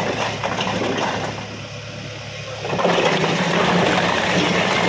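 A load of bricks slides and clatters off a tipped tractor trolley in a continuous rushing cascade. It eases briefly and then surges again, louder, about three seconds in. The Mahindra 585 DI XP Plus tractor's diesel engine runs steadily underneath.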